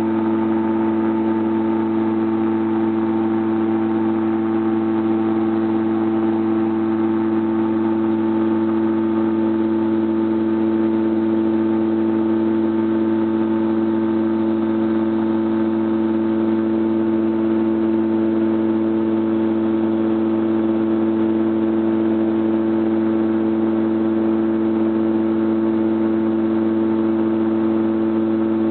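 Seastar amphibian ultralight's engine and propeller running steadily in cruise flight, a constant low drone that does not change in pitch or loudness.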